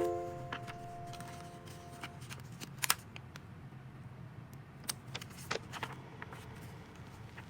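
A held music chord dies away over the first two seconds, leaving a low hum with a few sparse light clicks and taps, like small objects being handled.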